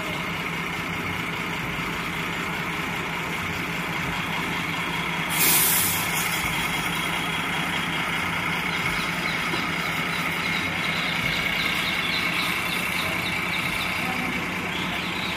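Steady engine hum and road noise of a bus, heard from inside, with a short, loud hiss of air from its pneumatic brakes about five seconds in.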